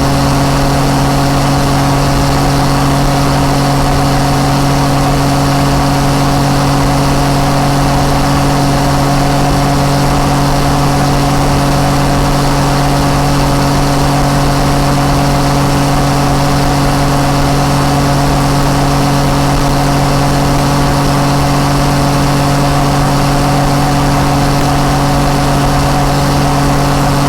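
Yamaha MT-09 Tracer's three-cylinder engine through an Akrapovic exhaust, running at a steady, unchanging speed with an even hum.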